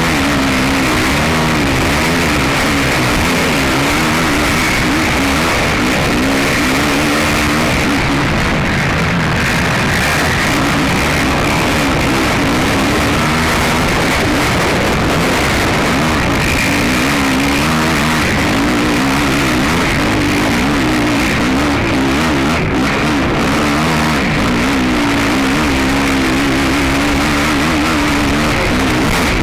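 Racing ATV engine heard from an on-board camera, running hard with its pitch rising and falling continuously as the throttle is worked, over a dense rushing noise.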